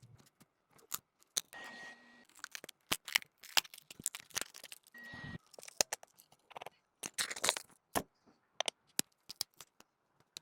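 Small repair tools clicking, tapping and scraping on a phone's cracked back glass, in quick irregular strokes. A short steady beep sounds twice, about two and five seconds in.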